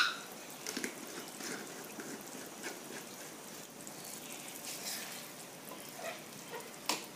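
Thick cashew-and-onion gravy simmering in a pan, small bubbles popping at irregular intervals, with a wooden spatula stirring through it near the end. A single sharp click right at the start is the loudest sound.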